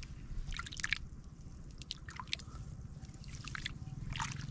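A hand groping through the mud and shallow water of a flooded rice paddy, feeling for apple snails: a few short wet squelches and splashes.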